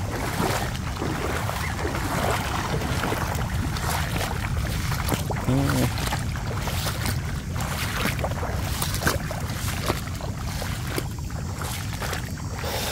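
Footsteps splashing and squelching through shallow floodwater and wet leaf litter, an irregular run of walking steps.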